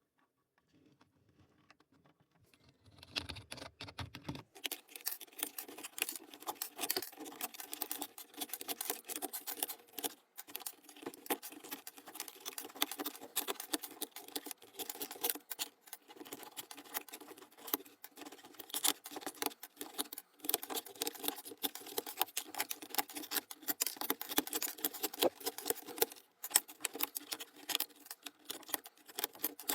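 Dense, rapid clicking and scratching of the hard plastic of an old Apple keyboard being worked on by hand, starting about three seconds in and going on without a break.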